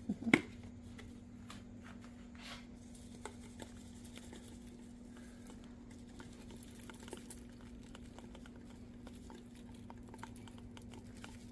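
Faint, scattered small clicks and ticks of handling over a steady low hum, with one sharp knock just after the start.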